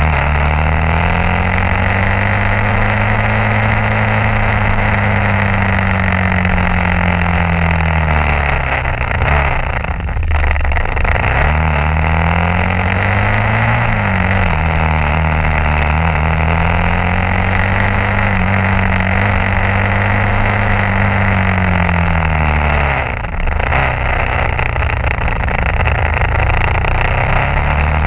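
Old Honda CBR motorcycle engine running under way, its note rising and falling with the throttle. It cuts out briefly twice, about ten seconds in and again near twenty-three seconds, before picking up again.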